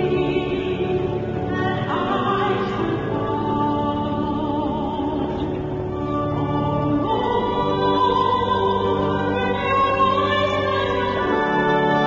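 Church organ holding sustained chords beneath singing, a slow hymn with a wavering sung melody line.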